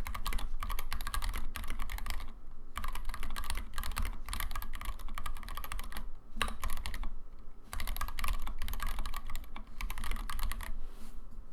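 Fast typing on a custom mechanical keyboard with stock Tealios 67g linear switches, SA-profile keycaps and an aluminium KBDFans Tofu case: a rapid, steady patter of key clacks. There are brief pauses a few times, and the typing stops shortly before the end.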